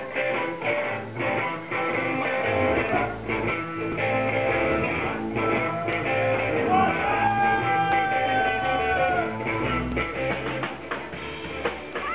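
Live electric blues shuffle: electric guitar playing over a drum kit, with a steady rhythm. A little past the middle, one long held note bends up and sustains for about three seconds.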